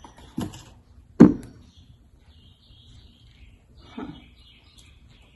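A few sharp knocks, the loudest about a second in and a softer one near the end, as the new oil filter and oil bottle are handled and set down. Faint bird chirps in the background.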